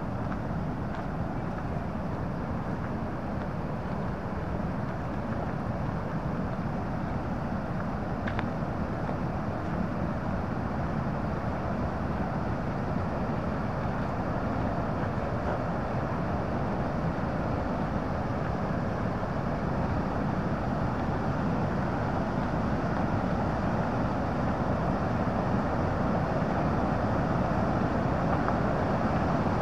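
Steady rush of the Bow River's rapids above Bow Falls, growing gradually louder.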